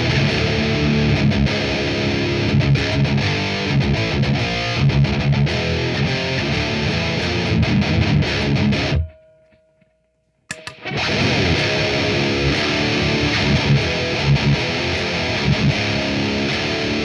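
High-gain distorted electric guitar riffing, a Kiesel Aries six-string played through a Mesa Triple Rectifier amp into a 4x12 cabinet loaded with Celestion V30 speakers. The playing stops for about a second and a half just past the middle, leaving near silence, then starts again.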